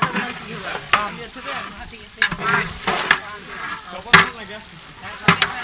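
Long metal ladle stirring chicken curry in a large metal cooking pot, knocking and scraping against the pot's side several times, the loudest knock about four seconds in, over the sizzle of the cooking curry.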